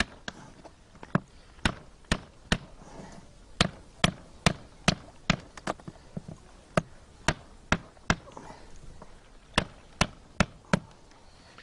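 Sharp wooden knocks from work on a birch-bark canoe's wooden inner frame, coming in an irregular run of about two a second.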